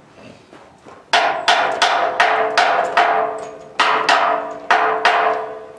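Hammer striking steel, about a dozen sharp blows at roughly three a second with two short pauses, each leaving a ringing tone in the struck metal.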